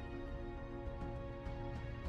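Ambient fantasy background music with held, sustained chords.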